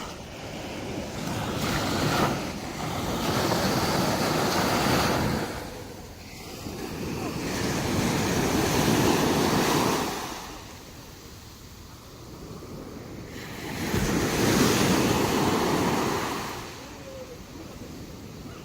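Sea surf breaking and washing up a beach: three swells of wave noise, each lasting a few seconds, with quieter lulls between.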